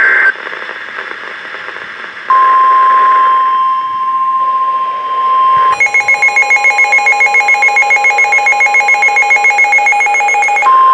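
NOAA Weather Radio alert: the last moment of a SAME data burst, a short stretch of radio hiss, then the steady 1050 Hz weather alert tone. About three and a half seconds later, a pulsing electronic alarm beeping about seven times a second sounds over the tone and stops just before it ends.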